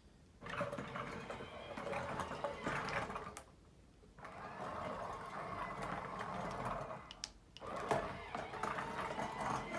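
Small electric motors of a 3D-printed robotic BB-8 whirring in three runs, stopping briefly twice.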